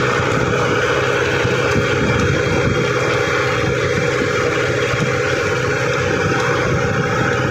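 Mahindra tractor's diesel engine running steadily while the tractor is under way.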